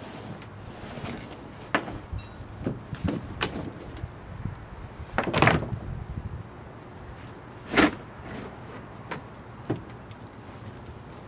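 Scattered knocks and clunks of gear being handled around a heavy welder at the back of a van, with two louder thumps, one about five seconds in and a sharper one about eight seconds in.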